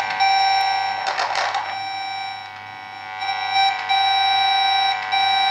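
Trace tone coming from a Trend Networks amplifier probe's speaker as it picks up an analog toner signal on an Ethernet cable: a steady, buzzy electronic tone. There is a crackle about a second in, and the tone drops in level for about a second midway before coming back as the cable is handled at the switch.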